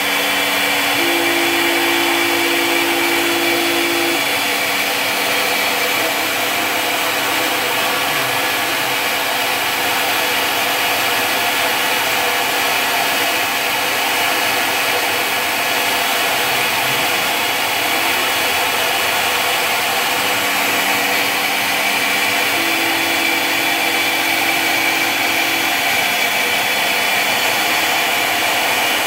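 CNC Tensilkut III milling machine running steadily as its spindle and end mill cut a wood composite blank, with no chip vacuum running. Under the even cutting noise, a low hum steps up and down in pitch a few times, near the start and again about two thirds of the way through.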